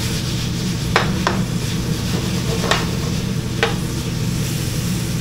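Cubed pork sizzling in a frying pan over high heat, already browned, stirred with a utensil that knocks against the pan four times. A steady low hum runs underneath.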